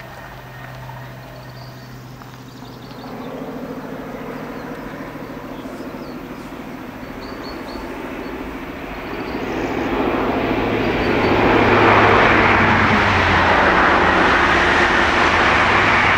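High Speed Train with Class 43 diesel power cars approaching at line speed: a broad rush of engine and wheel-on-rail noise swells from about nine seconds in and stays loud as the train passes close by.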